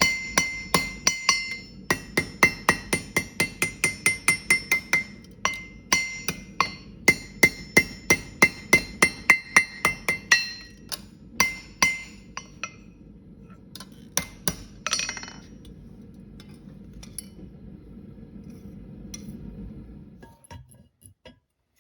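Blacksmith's hammer striking metal on an anvil, about four ringing blows a second in runs with short pauses. The blows thin out about halfway through and stop, leaving a low steady hum.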